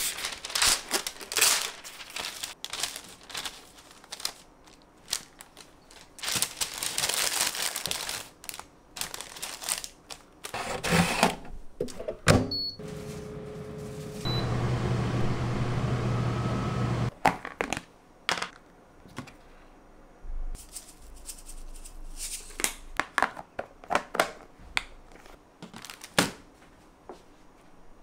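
Parchment paper crinkling as it is pulled off the roll and torn, then a few clicks and two short beeps from an Inic air fryer's touch panel, followed by the fryer's fan running with a steady hum for about three seconds. Scattered light clicks and knocks follow near the end.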